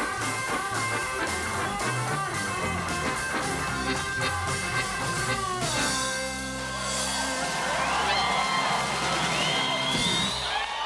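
Live rock band with electric guitar, bass and drum kit playing the close of a song, settling onto a sustained final chord about six seconds in, with high sliding tones over it near the end.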